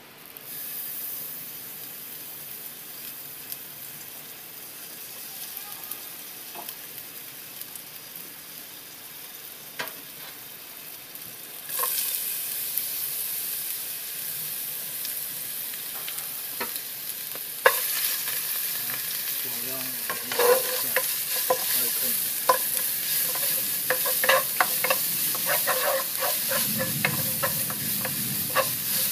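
Oil sizzling in an F4 Blue Diamond nonstick wok, at first quietly around a single piece of aromatic, then louder from about twelve seconds in once shredded ingredients and chili are in the pan. In the last third a wooden spatula stirs the food, with quick clicks and scrapes against the pan over the sizzle.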